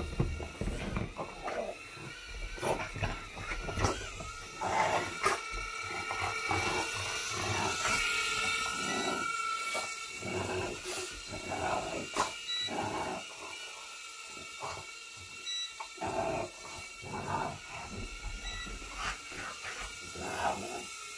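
A small indoor toy quadcopter's propellers whine steadily throughout, while a French bulldog barks over and over in short bursts as it chases the drone.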